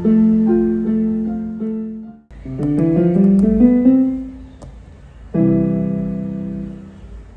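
Electric keyboard playing in a piano voice. A phrase cuts off abruptly about two seconds in, then comes a rising run of notes and a struck chord that slowly fades out.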